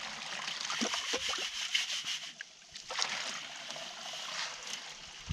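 Water splashing and running out of a homemade hydrocyclone, a converted Weber kettle barbecue bowl, as gravel is washed through it. There are a few short knocks about a second in and again near three seconds.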